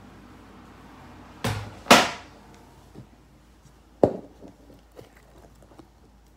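A plastic slime tub handled and set down on a tabletop mat: two loud knocks close together about two seconds in, a sharp tap about four seconds in, and a few faint clicks between.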